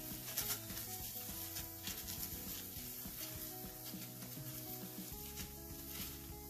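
Oil sizzling lightly under a methi thepla (flatbread) frying on a hot griddle, with soft scrapes of a spoon spreading the oil over it. Soft background music plays.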